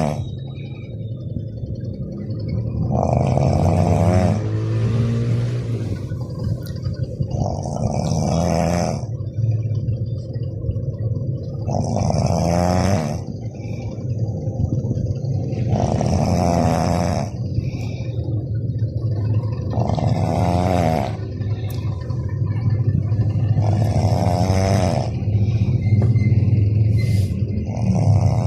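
Snoring: a rattling snore about every four seconds, over a steady low rumble.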